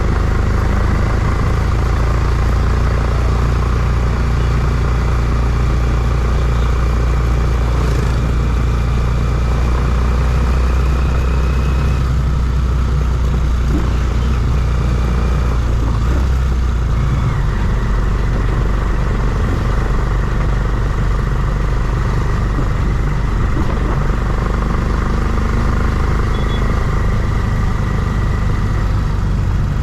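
A vehicle engine running steadily throughout, with a strong low hum that shifts slightly about seventeen seconds in.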